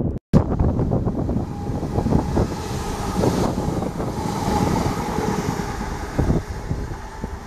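Class 323 electric multiple unit passing close along the platform at speed: rumble of wheels on the rails with a steady electric whine, and wind buffeting the microphone. A brief cut-out in the sound just after the start.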